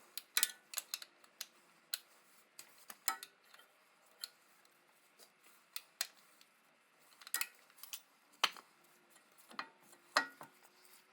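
Metal hand tools and parts clinking: irregular sharp metallic clicks and taps, a few with a short ring.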